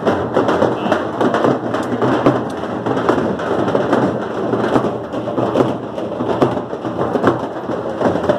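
Loud, continuous din of a large street crowd, with a dense patter of sharp hits running through it.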